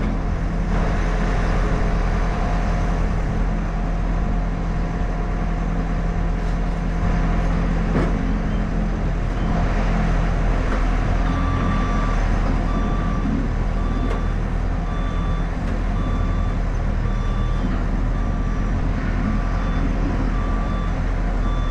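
A heavy diesel engine runs steadily. About halfway through, a telehandler's reversing alarm starts beeping, about three beeps every two seconds.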